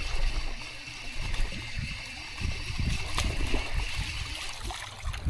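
Shallow bay water sloshing and trickling while a hooked fish is fought and splashes at the surface, with a steady low wind rumble on the microphone and one sharp click about three seconds in.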